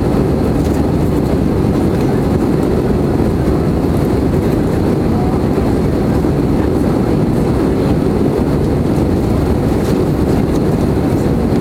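Cabin noise in a Swiss Airbus A320 climbing out after take-off: a loud, steady rumble of the jet engines and rushing air, deepest in the low range.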